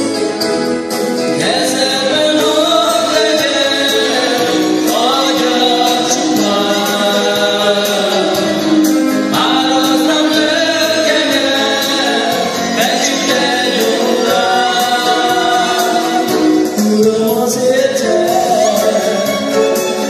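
Voices singing a gospel worship song together with instrumental accompaniment and a regular percussion beat.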